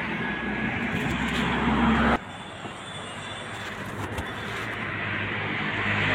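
Street traffic: a motor vehicle's engine running with road noise, growing louder and then cutting off suddenly about two seconds in, followed by quieter, slowly rising traffic noise.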